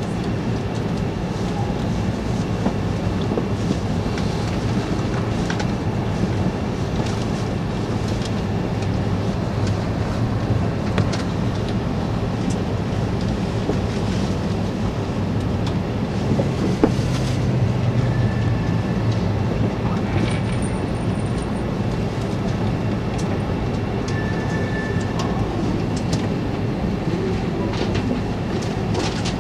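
Steady running noise of a Tohoku Shinkansen "Hayate" train heard inside the carriage: a low, even rumble of wheels on rails with faint clicks.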